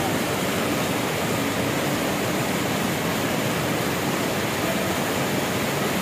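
Steady rushing of white water as a steep mountain stream cascades over boulders.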